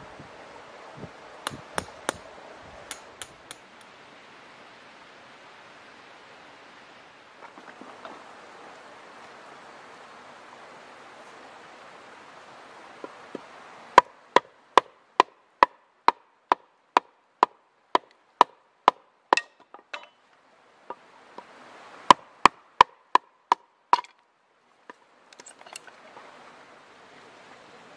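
Firewood being split into kindling on a wooden board: a run of sharp wooden chopping knocks, about two to three a second, starting about halfway through, then a second short cluster of strikes near the end. Before the chopping there is only faint outdoor ambience with a few light clicks.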